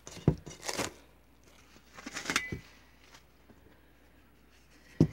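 Plastic cling film crinkling as it is pulled off a stainless steel bowl of risen dough, in short rustles in the first second and again about two seconds in. A sharp knock near the end.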